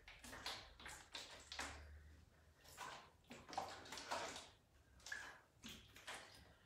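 Faint sloshing of liquid inside a plastic jerry can as it is lifted and lowered as a hand weight, in short, irregular splashes.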